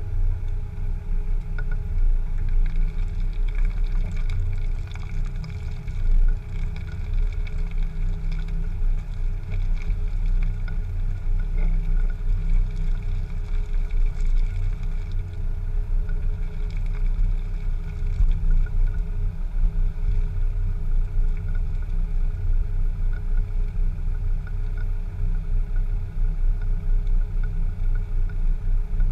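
Land Rover Discovery 2 driving slowly over rough, muddy ground: a steady low engine rumble, heard close to the front wheel, with scattered light crackles from the tyre.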